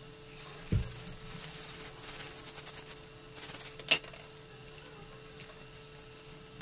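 Tap water running over a rusty antique axe head while a wire brush scratches rust off the steel, with a low thump under a second in and a sharp clink at about four seconds.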